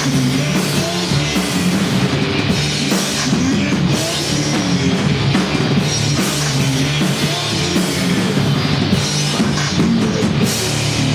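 Rock band playing live: electric guitars and bass over a drum kit, with regular drum and cymbal hits.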